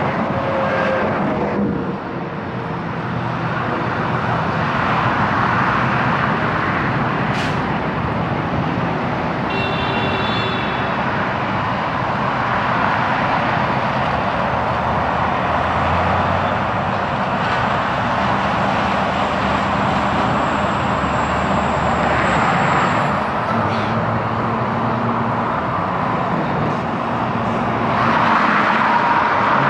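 Steady highway traffic: semi trucks and cars passing, with diesel engines humming under the rush of tyres. A brief high squeal sounds about ten seconds in, and the traffic grows louder near the end.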